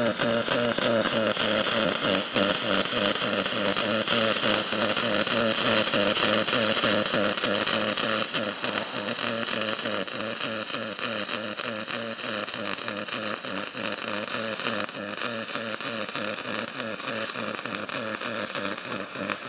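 Pulsed MIG welding arc laying a bead with 70-30 copper-nickel wire: a steady buzz with a fast, even pulse. It gets a little quieter about eight seconds in.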